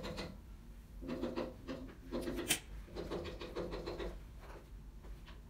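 Comb and fingers running through the long hair of a wig on a mannequin head, rubbing and rasping in about three strokes. A sharp click comes about two and a half seconds in.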